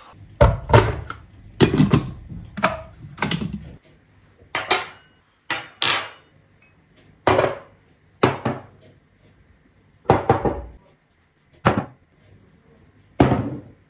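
Tableware being set down piece by piece on a hard table top: forks, glass mugs, a jar and a small ceramic bowl, giving a dozen or so separate knocks and clinks.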